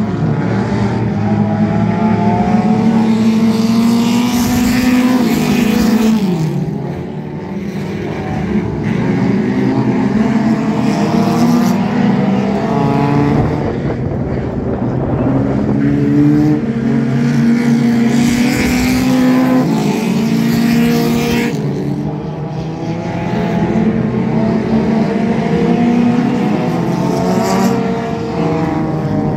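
Dirt-track race cars running hot laps around the oval, several engines at full throttle. The engine note rises and falls as the cars come past and then fade down the far side, swelling and dipping several times.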